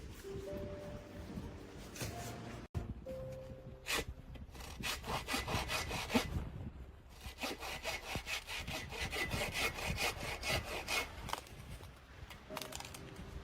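Hand saw cutting wood in quick back-and-forth strokes, in two runs of a few seconds each with a short pause between.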